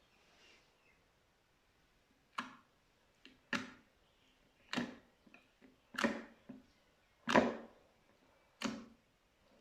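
Slime being pressed by hand: a series of short, sharp squishes about once a second, starting a couple of seconds in, with a few smaller ones in between.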